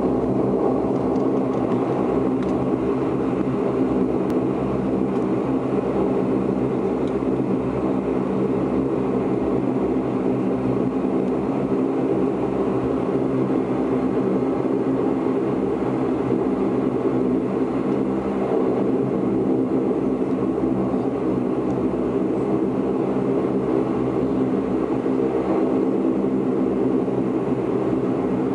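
Bombardier Dash 8 Q400's turboprop engines and propellers running at taxi power, heard from inside the passenger cabin: a steady hum of several low tones over a rushing noise, with no change in pitch or level.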